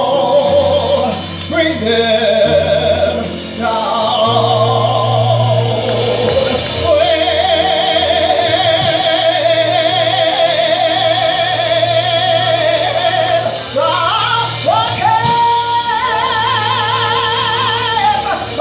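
A woman singing a gospel song into a microphone, drawing out long held notes with a wide vibrato. Under her voice is an instrumental accompaniment with sustained bass notes.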